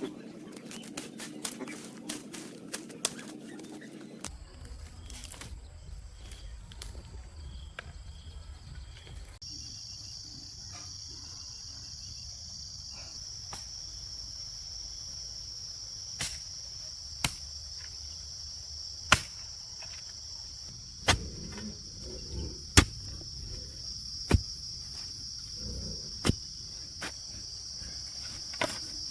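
Insects chirring in a steady high band that starts about a third of the way in, with a sharp knock every second or two through the second half. At the start, a run of quick clicks over a low hum stops suddenly.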